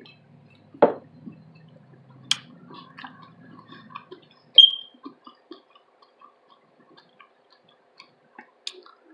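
Close-up chewing and wet mouth sounds of someone eating, with scattered small clicks and smacks and two louder sharp crunches or clicks, one about a second in and one about halfway through. A low hum runs under the first few seconds.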